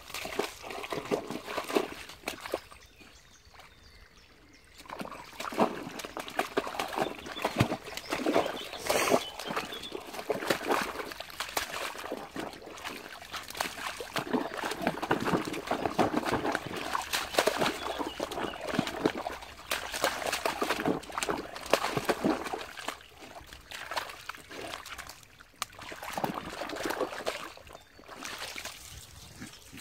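Irish setter puppy lapping water from a muddy puddle, a rapid run of wet slurps and small splashes with a pause a few seconds in.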